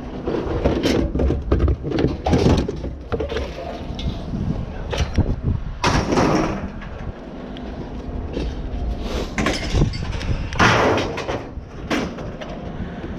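Scrap being handled: repeated knocks, clanks and thuds, with two longer, louder scraping bursts about six seconds in and again near ten and a half seconds, over a steady low rumble.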